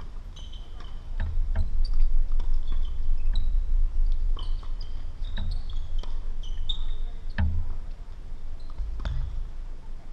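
Tennis ball being struck by rackets and bouncing on the court during a rally: sharp knocks every second or two, over a low rumble.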